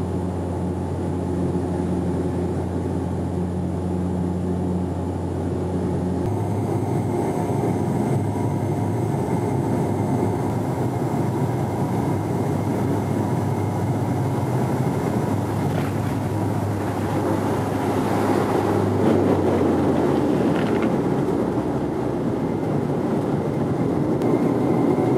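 Cabin noise of a turboprop airliner beside the propeller: a steady propeller drone on the approach, which changes abruptly about six seconds in to the rumble of the landing roll on the runway. The rumble swells louder a little past the middle as the aircraft slows on the runway.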